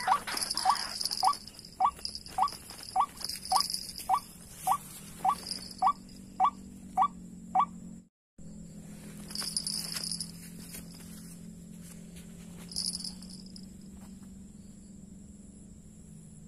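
White-breasted waterhen calls: short rising notes repeated about twice a second, stopping about seven seconds in. After a brief cutout there is a steady low hum, with pulsing high-pitched insect buzzing.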